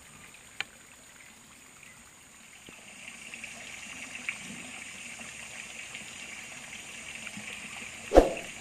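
Water trickling steadily into a pond from a plastic pipe outlet, a little louder from about three seconds in, with one loud, short thump near the end.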